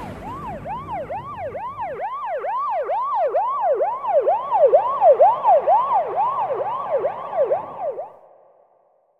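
Siren in a fast rising-and-falling yelp, about three sweeps a second, growing louder through the middle and then fading out near the end.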